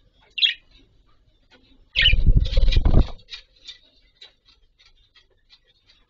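Budgerigars giving short, high chirps, with a loud, low fluttering burst lasting about a second, starting about two seconds in, as a budgie flaps its wings and flies off its perch.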